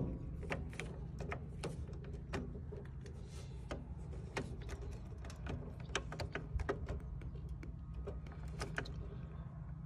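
Flathead screwdriver tightening the wire terminal screw on a 15-amp circuit breaker: irregular small clicks and scrapes of metal on metal, over a steady low hum.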